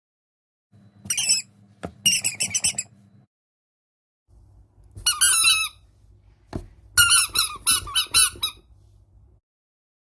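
Rubber duck toys squeezed and squeaking, their quacks slowed down into drawn-out, wavering squeals. They come in four bursts, with a couple of sharp clicks between them.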